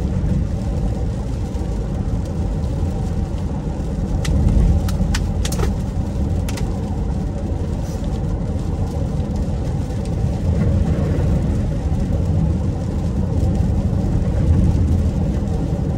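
Steady low rumble of road and engine noise inside a moving car's cabin, with a few short faint clicks around five seconds in.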